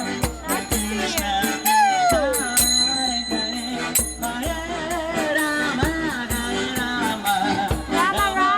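Music: singing over a quick, steady beat of jingling, rattling hand percussion.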